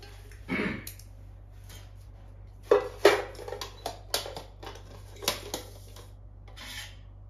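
Chopsticks and small utensils knocking and clinking against a small metal cooking pot as it is packed, with a few scrapes and rustles between the knocks. The knocks come irregularly, the loudest about three seconds in.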